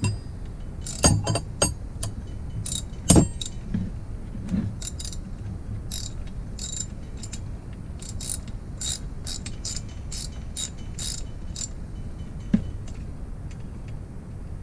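Ratchet wrench clicking in short repeated strokes as it turns the forcing bolt of a gear puller drawing a part off the engine shaft, with a few sharp metal knocks in the first few seconds and one near the end.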